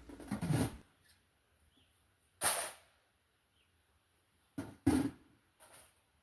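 Maple sap buckets clanking as they are handled and stacked away at the end of the season. There is one sharp clank about two and a half seconds in, two quick knocks just before five seconds, and a couple of fainter knocks after.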